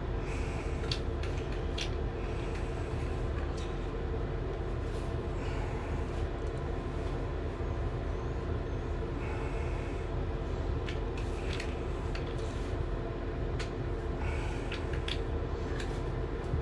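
Steady low machine hum with a constant tone, with scattered light clicks and clinks, such as small parts being handled.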